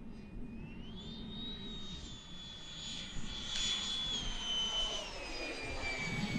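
The 90 mm nine-blade electric ducted fan of a Freewing F-15 model jet whining in flight, its pitch rising about a second in, holding, then stepping down twice near the end as the throttle is eased back for a landing approach. Wind rumble on the microphone underneath.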